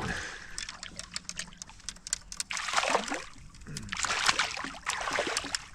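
Water splashing and dripping beside a kayak as a small hooked bass thrashes at the surface while it is reeled in. The splashing comes in two bursts, about halfway through and again near the end, with scattered drips and ticks between them.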